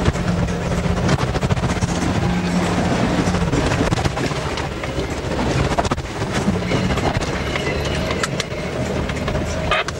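A 4x4's engine running under load over rough ground, with a steady low drone in the first few seconds. Rattling and frequent sharp knocks run through it.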